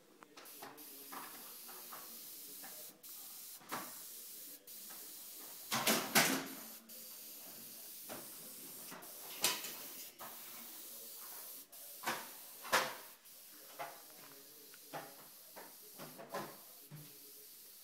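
Gravity-feed airbrush hissing steadily as it sprays paint, the hiss cutting out briefly several times as the trigger is let go. A handful of louder short noises stand out over it, the loudest about six seconds in.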